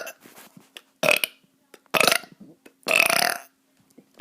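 A kid burping three times in quick succession, each burp a short pitched croak, the last one the longest.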